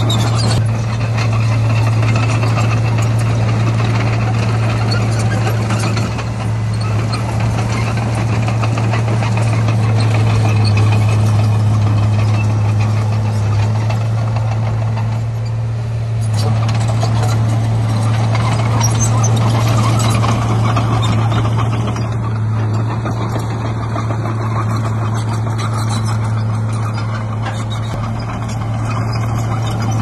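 Diesel engine of heavy earthmoving machinery running steadily with a strong low hum, easing briefly about halfway through.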